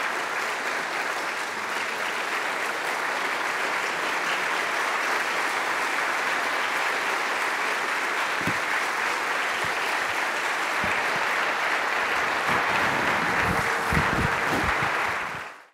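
Large audience applauding, a dense, sustained clapping that stops abruptly near the end, with a few low knocks in the last seconds.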